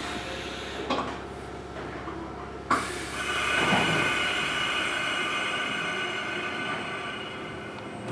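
Mizuma Railway 1000 series electric train standing at a station, heard from inside a car: two knocks, the sharper one just under three seconds in, then a steady high-pitched whine from the train's equipment until it begins to pull away near the end.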